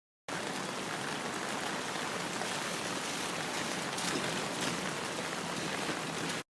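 A steady, even hiss like running water, a stock sound-effect clip that starts abruptly just after the beginning and cuts off suddenly near the end.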